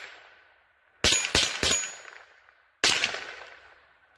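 Rossi RS22 .22 LR semi-automatic rifle firing CCI Mini-Mag copper-plated hollow points: three quick shots about a third of a second apart, then a fourth about a second later, each followed by a fading echo. The action cycles every round without a hitch.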